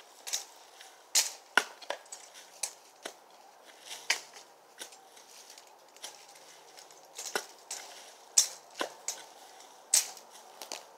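Dry brush and branches being cut and broken up: irregular sharp snaps and cracks, a dozen or so, with a lull about halfway through.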